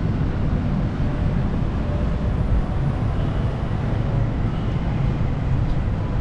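Steady low outdoor rumble of city ambience, with no distinct events.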